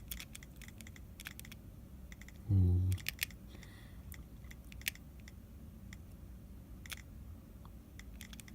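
Typing on an iPhone 5s touchscreen keyboard: a quick run of key clicks, then a few scattered ones. A brief low hum about two and a half seconds in.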